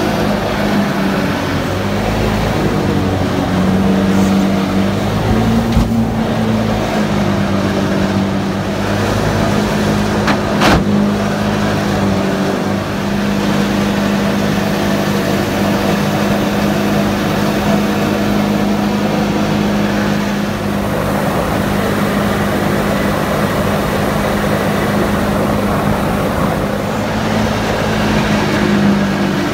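Jet boat engine running steadily under way, its pitch shifting slightly up and down in the first few seconds, with a single sharp knock about eleven seconds in.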